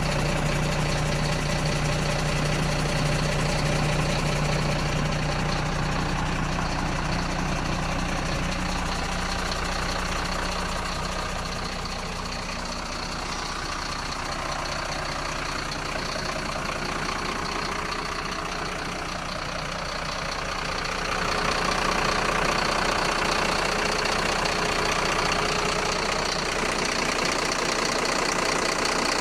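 Mercedes-Benz Atego 1224 truck's diesel engine idling steadily, getting louder nearly three-quarters of the way through.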